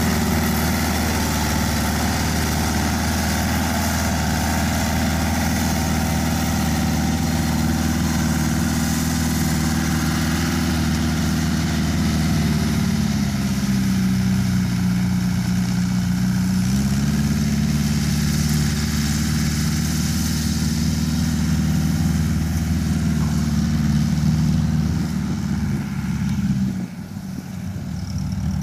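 Tracked rice-hauling tractor's Mitsubishi engine running steadily as the loaded machine travels. Its pitch drops for a few seconds about halfway through, then comes back up. The sound falls off shortly before the end.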